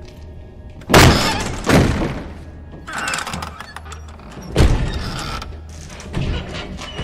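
A heavy door being shoved and forced open: a series of about five loud thuds and clunks, each dying away, over a steady low drone.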